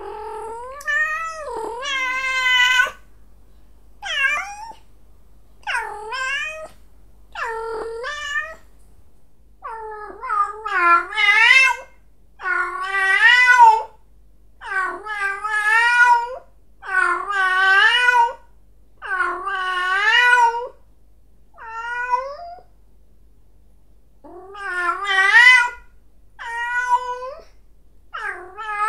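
Domestic cat yowling in a long series of drawn-out calls, about one every two seconds, each wavering up and down in pitch.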